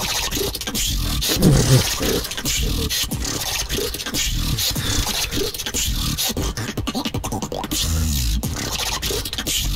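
Beatboxing: a fast stream of mouth-made percussive hits, with deep bass tones. The loudest moment is a bass passage about a second and a half in.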